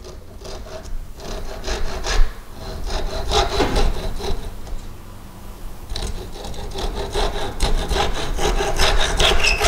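Hand saw cutting wooden dowels shorter on a bench hook, in quick back-and-forth strokes, with a short pause about halfway through.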